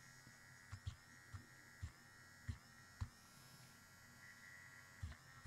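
Near silence: a faint steady electrical buzz with a high whine, broken by a few soft, irregular low knocks.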